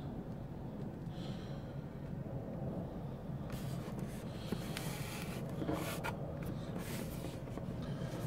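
Faint rubbing and handling noises from a trainer being turned over in the hands, over a steady low room hum, with a few light clicks in the second half.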